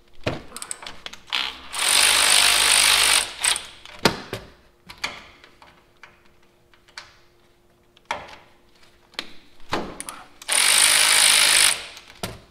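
A cordless power tool spins a socket on the 14 mm strut top nuts to loosen them, in two bursts of about a second and a half each, one about two seconds in and one near the end. Sharp clicks of tools and sockets sound between the bursts.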